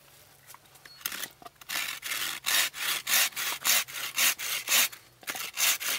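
Small hand saw cutting across a wooden spoon blank in quick back-and-forth strokes, about two to three a second, starting about a second in. These are stop cuts at the sides of the blank, made so the waste wood can then be split away with an axe.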